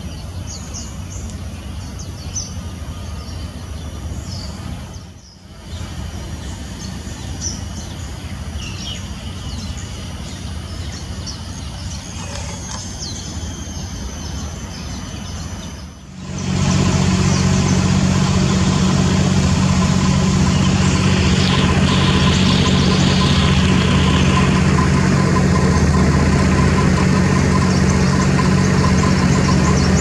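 Scattered short, high bird chirps over a low background rumble. About sixteen seconds in, the sound cuts to a louder, steady low engine hum that dominates the rest.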